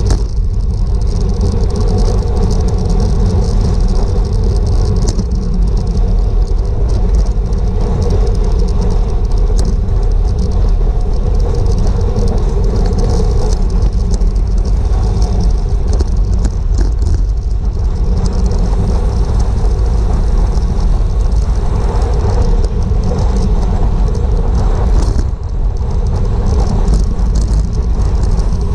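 Wind buffeting a GoPro's microphone on a bicycle racing at speed: a loud, steady rumble with a hiss over it, easing briefly about 25 seconds in.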